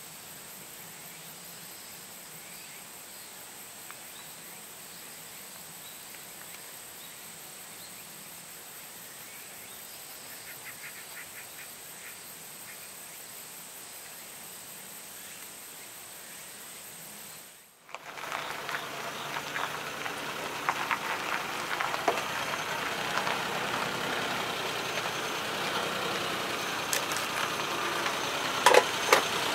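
Quiet steady outdoor ambience with a thin high steady tone for the first part. After a sudden cut near the middle comes a louder vehicle engine running at idle, with scattered sharp clicks and knocks, while jumper cables are hooked up between a Suzuki Jimny and a small tractor.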